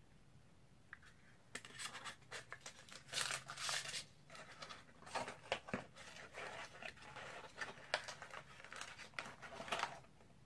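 Packaging of a GoPro Hero 10 Black being handled and pulled apart: irregular crinkling, scraping and sharp clicks. It starts about a second and a half in and stops just before the end.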